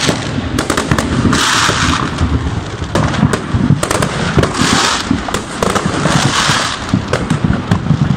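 Fireworks going off all around: a dense, irregular run of sharp firecracker bangs, with several spells of hissing crackle.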